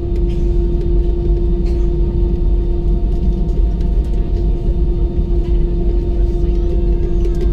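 Airbus A320's jet engines at taxi idle, heard inside the passenger cabin as a steady low rumble with a constant hum tone while the plane rolls slowly along the taxiway.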